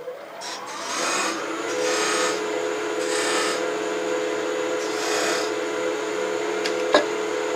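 Wood lathe running, its motor whine climbing over the first second or two and then holding steady. A hand turning tool cuts decorative bead grooves into the spinning spindle in several short scraping passes. A single sharp click comes about seven seconds in.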